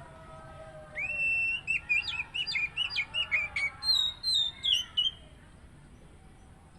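Oriental magpie-robin (kacer) singing one phrase of about four seconds: a long held whistle, then a quick run of short sharp chirps, ending in a few falling notes.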